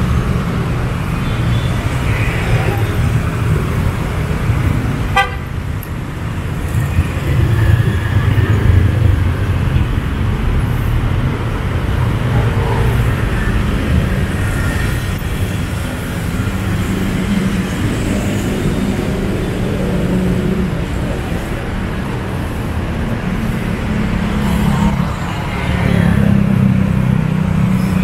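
Street traffic: a steady low rumble of passing vehicle engines and tyres, with a vehicle horn tooting and people's voices in the mix.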